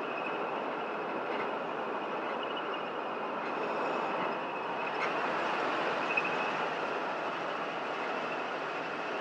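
Steady road noise of a car driving at speed, heard from inside the car.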